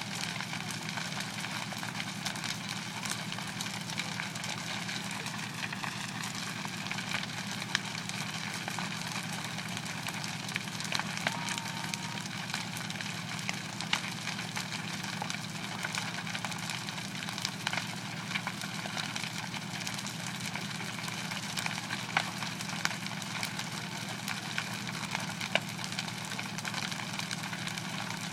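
Burning wooden house crackling, with frequent sharp pops scattered throughout, over the steady low hum of an idling engine.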